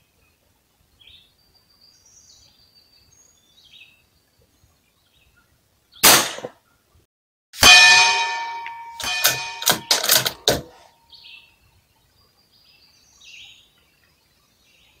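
A .22 LR precision rifle shot, then about a second and a half later a steel target plate rings out, with several more ringing clangs over the next few seconds as it swings, each ring fading away. Faint birdsong is heard.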